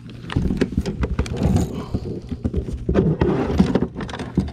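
Close rustling and a rapid, irregular run of knocks and thumps: handling on a plastic fishing kayak, with clothing brushing against the microphone.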